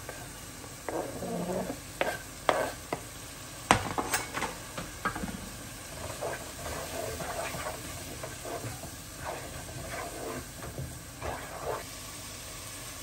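A wooden spoon stirring and scraping a thick, gently sizzling curry masala in a non-stick pot as chopped coriander and green chillies are added. There are a few sharp knocks in the first few seconds, then uneven scraping strokes.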